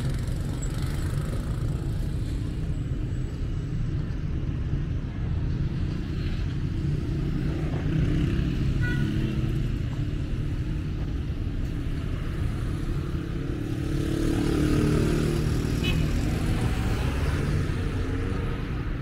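Street traffic: a steady rumble of cars going by, with one vehicle's engine growing louder and passing about three-quarters of the way through.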